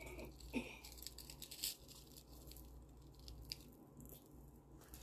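Faint clinks and rustles of a metal-chain beaded necklace being handled and worked with the fingers. The short clicks come mostly in the first couple of seconds, with one more a little past halfway.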